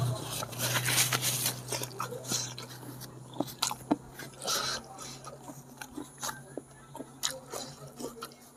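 Close-up chewing and mouth sounds from eating goat-head curry: irregular wet clicks and small crunches, over a faint steady low hum.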